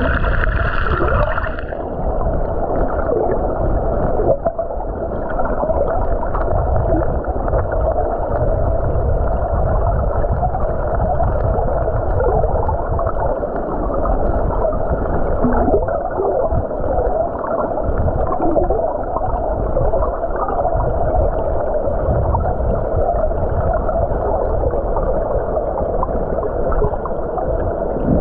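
Water heard through a submerged camera in a stream: a steady, muffled rushing and gurgling.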